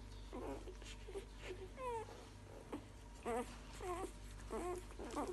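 Litter of newborn puppies squeaking and whimpering: many short, high, thin calls, some sliding down in pitch, coming thicker from about three seconds in.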